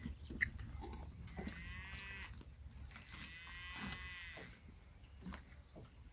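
Two distant sheep bleats, about a second each, the second a little longer.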